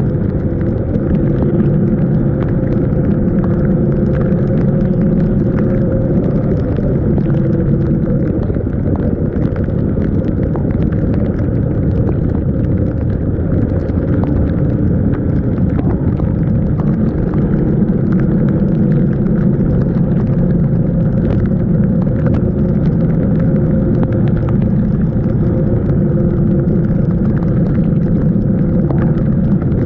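Yamaha NMAX 155 scooter's single-cylinder engine running on the road, a steady drone whose pitch drifts slightly, over a low rumble.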